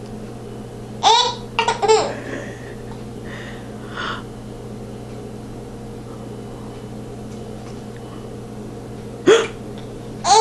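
A baby girl giggling in short bursts broken by hiccups. There is a cluster of sharp hiccup-giggles about a second in, two faint ones around three and four seconds, and another sharp one near the end.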